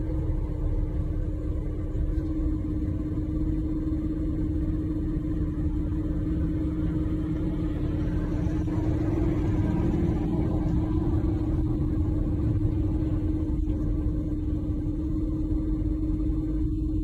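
Excavator engine running steadily: a constant hum over a heavy low rumble as its arm pulls a silo over.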